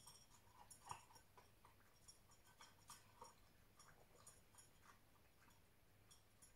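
Faint crunching and clicking from a Border Collie puppy eating dry kibble out of a metal bowl, in small irregular bursts, loudest about a second in.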